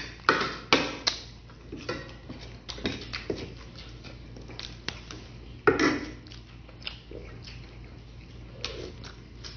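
Eating sounds: a metal spoon clinking and scraping on a ceramic plate, mixed with chewing and lip smacks, as a string of short sharp clicks. The loudest comes about six seconds in.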